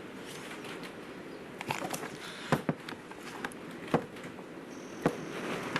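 Four sharp taps spread over several seconds, a CV joint being tapped back onto its drive shaft splines, over a steady patter of wind and rain on the garage roof.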